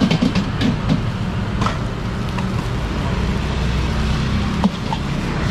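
Steady low rumble with a few sharp clicks over it.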